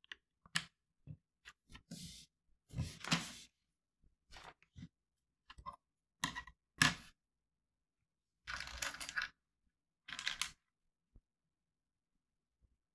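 Plastic building bricks being handled and pressed together on a tabletop: scattered sharp clicks and snaps, with longer rustling stretches about three seconds in and around nine to ten seconds.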